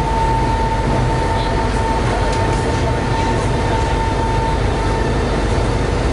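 Shanghai Metro Line 11 train running, heard from inside the passenger car: a steady loud rumble, with a thin high steady tone above it that stops about four and a half seconds in.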